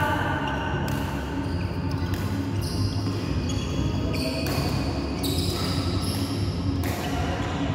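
Badminton rally: rackets striking the shuttlecock with sharp smacks about once a second, each with a short ringing echo, along with players' footsteps thudding on the court.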